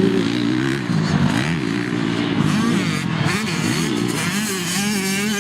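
Several motocross dirt bikes racing past, their engines revving up and down with overlapping, rising and falling pitches as riders work the throttle and shift.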